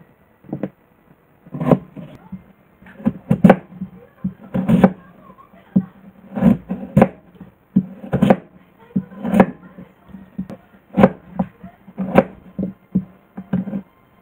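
Kitchen knife cutting daikon radish on a wooden cutting board: a series of irregular knocks as the blade goes through the root and hits the board, about one or two a second.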